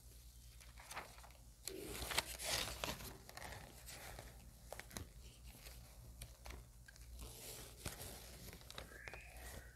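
Faint rustling and crinkling of paper pages being handled, with scattered light clicks; loudest about two seconds in.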